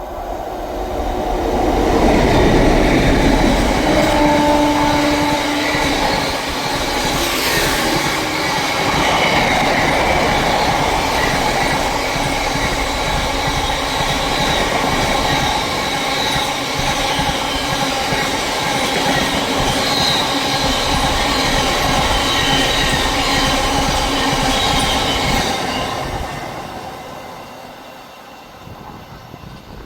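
A train passing through at speed, loud for over twenty seconds with rail and wheel noise and a faint high ringing, then fading away near the end. About four seconds in there is a short steady horn note.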